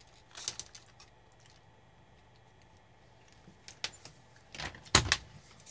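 Scattered small clicks and knocks of test leads, a battery pack and tools being handled on a workbench, the loudest a single sharp knock about five seconds in.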